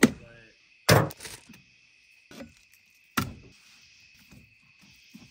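Knife and meat knocking on a wooden cutting board: three sharp knocks in the first few seconds, then lighter taps as the cooked meat is sliced near the end. Crickets chirr steadily behind.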